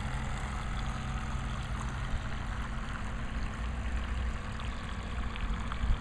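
Radio-controlled model boat's electric motor running with a steady low hum as the model cruises across the water.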